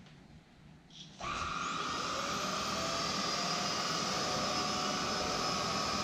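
Roidmi F8 cordless stick vacuum switched on: a click about a second in, then the motor starts abruptly and runs steadily with a high whine over the hiss of suction.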